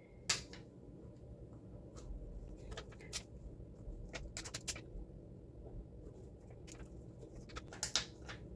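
Faint, scattered small clicks and light taps: self-adhesive clear gems being picked off their backing sheet and pressed onto the paper page. A few sharper clicks stand out among the softer ones.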